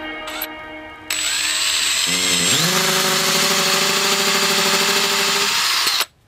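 Power drill boring a small hole in a thin wooden cutout. The drilling noise starts about a second in, the motor's pitch climbs and then holds steady, and the sound cuts off abruptly near the end.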